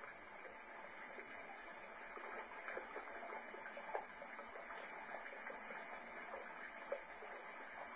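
Faint, muffled splashing and trickling of shallow stream water as a Cavalier King Charles spaniel wades through it, with many small splashes and a couple of sharper ones about four and seven seconds in. The sound is thin and dull, heard through a television's speaker.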